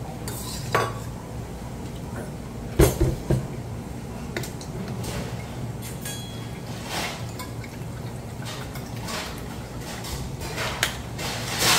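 Stainless-steel bowls and spoons clinking and knocking on a wooden table, with the loudest knocks about three seconds in. Partway through, water is poured from a plastic bottle into a steel bowl.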